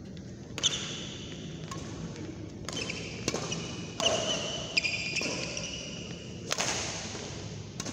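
Badminton doubles rally: rackets striking the shuttlecock in sharp cracks about once a second, with shoes squeaking on the court mat between hits.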